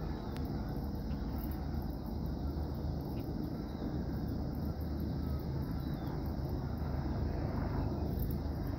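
Helicopter in flight, a steady drone of its rotor and engine.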